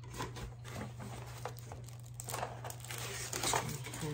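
Paper and plastic packaging crinkling and rustling in the hands as items are taken out of a box, in irregular bursts with a few sharp crackles, growing busier near the end, over a steady low hum.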